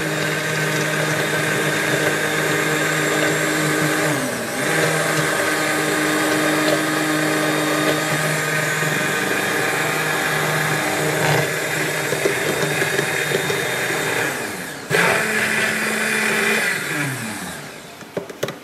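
Stick hand blender running in a tall plastic cup, whipping egg yolks as hot butter is blended in to form a béarnaise emulsion. Its steady motor whine dips briefly about four seconds in and again near the end, then winds down with falling pitch as it is switched off.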